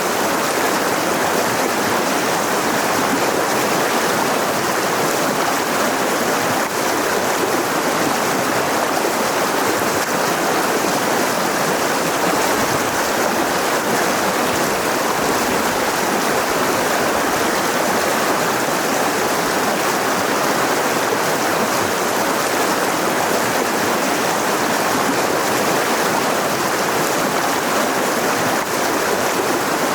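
Mountain river rushing over rocks: a steady, loud water noise that doesn't change.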